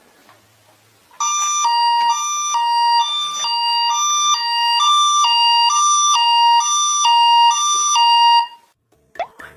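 Toy emergency vehicle's electronic two-tone siren, alternating high and low notes about twice a second. It starts about a second in and cuts off suddenly near the end.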